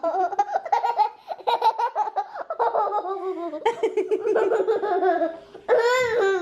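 A young child laughing in quick, repeated bursts, breaking into a louder, higher-pitched squeal near the end.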